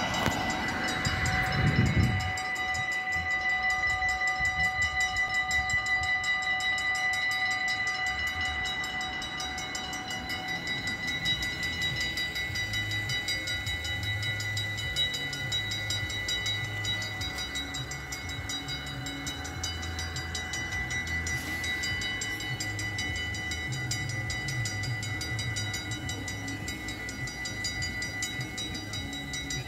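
The two mechanical bells of a Dutch AHOB level crossing ringing continuously in rapid even strokes, the crossing's warning that a train is coming. A car passes over the crossing about two seconds in.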